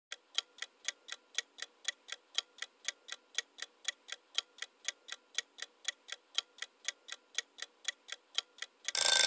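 Clock-tick timer sound effect ticking evenly, about four times a second, while the answer time runs. Near the end a louder electric bell-like alarm starts ringing, marking the time running out.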